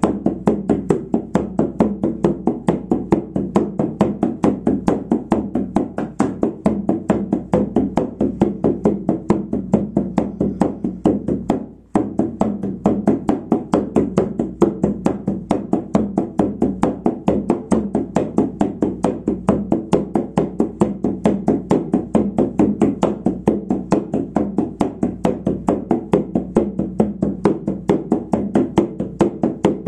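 Hand-held frame drum beaten with a padded beater in a fast, even shamanic drumming rhythm of about four to five beats a second, each stroke ringing with a deep tone. The beat stops for a moment about twelve seconds in, then carries on.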